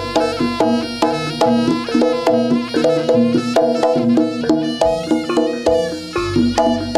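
Jaranan gamelan music: struck metallophones ringing a fast, steady repeating pattern of notes, about four to five strikes a second, over drums.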